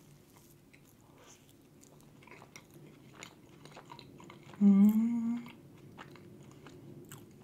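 Soft chewing of a bite of pistachio éclair, a cream-filled choux pastry, with faint wet mouth clicks. About four and a half seconds in comes a short closed-mouth hummed "mmm", rising slightly in pitch, the loudest sound.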